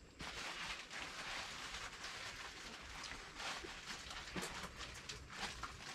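Faint outdoor background ambience: a steady low hiss with a few soft clicks and no clear single source.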